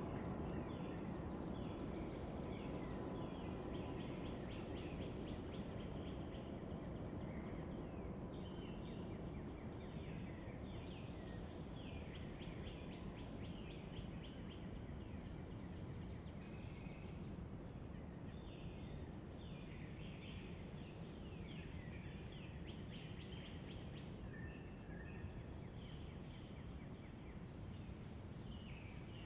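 Small woodland birds chirping: many short, high calls in quick runs, over a steady low background rumble.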